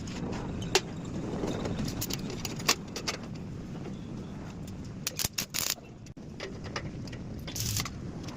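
Metal pieces clinking and knocking now and then, with a cluster of quick knocks in the middle, over a steady low rumble.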